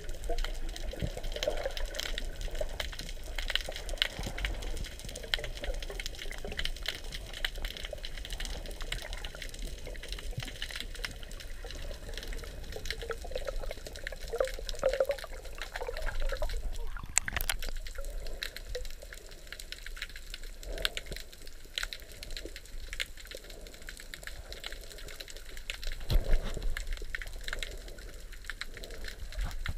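Underwater sound through an action camera's waterproof housing: a muffled wash of water with a steady scatter of small clicks and crackles. About 26 seconds in there is a louder splashing rush as the camera breaks the surface.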